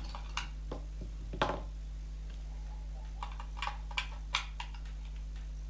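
Scattered small clicks and taps as AA batteries are handled and fitted into the plastic battery compartment of a speedstacking timer display, over a steady low hum.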